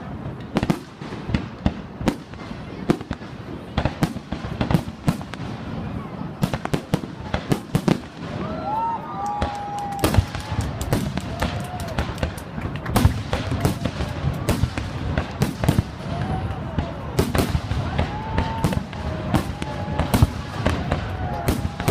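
Fireworks display: a dense string of bangs and crackles going off in quick succession throughout.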